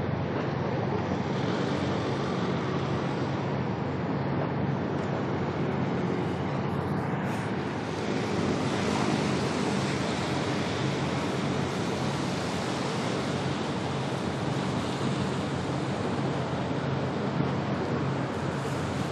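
Steady outdoor wind and water noise with a low droning hum underneath, unchanging throughout. A faint falling whistle comes about seven seconds in.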